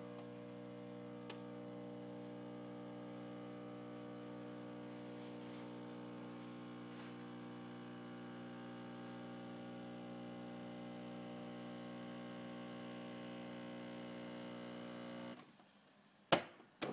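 Jura automatic coffee machine brewing: its pump hums steadily as coffee streams from the spouts, then cuts off abruptly about a second and a half before the end, followed by a sharp click.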